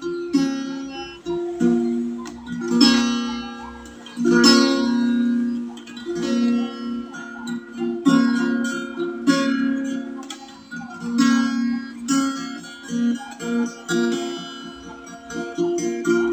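Small acoustic guitar played solo, fingers plucking and strumming chords in a steady rhythm.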